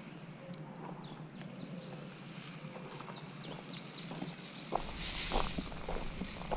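Birds chirping in quick runs of short, high, falling notes, over a steady low hum. From about five seconds in, a low rumble joins, with scattered light knocks.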